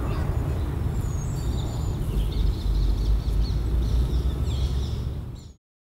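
Outdoor park ambience: a low, fluctuating rumble with small birds chirping over it, which cuts off suddenly to dead silence near the end.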